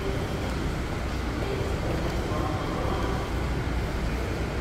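Steady low rumble and hum of an underground subway station concourse, with faint thin tones above it.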